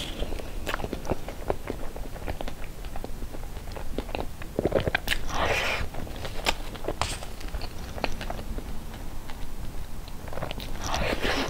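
Close-miked wet chewing and mouth clicks from eating soft cream cake, with small taps of a fork and spoon. Two louder, longer sounds stand out, about halfway and near the end.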